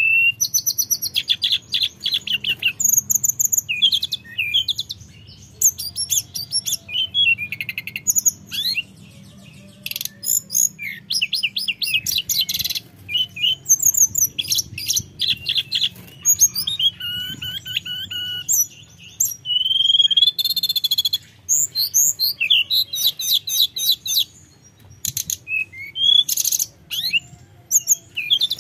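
Hill blue flycatcher (tledekan gunung) singing: long runs of quick, high, varied whistled notes, broken by short pauses between phrases.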